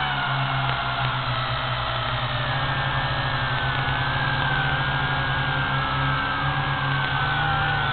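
Quadcopter's small electric motors and propellers whirring in flight. Their whine wavers slightly up and down in pitch as the throttle shifts.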